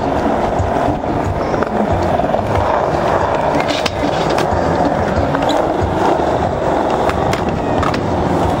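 Skateboard wheels rolling on concrete, a steady grainy rumble, broken by a few sharp clacks of the board, one of them about four seconds in as a skateboard slides onto a low flat rail.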